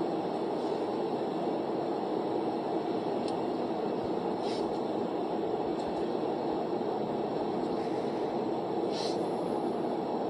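Steady road and engine noise of a car driving, heard from inside the cabin, with a few faint brief ticks.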